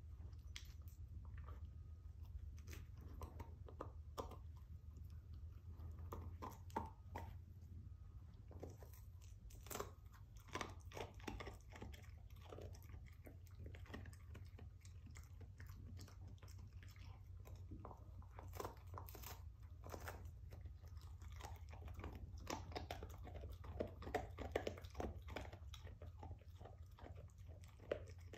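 A dog crunching and gnawing on a rawhide bone, with irregular sharp cracks and clicks of chewing throughout.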